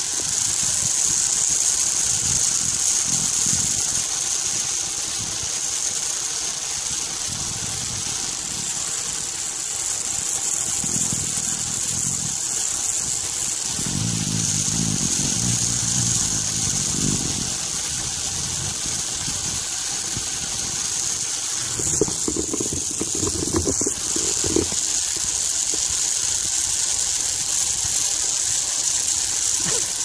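Pulley wheels of a cable-ride trolley running along a steel cable with a steady high-pitched whir, while wind buffets the microphone in an uneven low rumble. A few sharper knocks come about 22 to 25 seconds in.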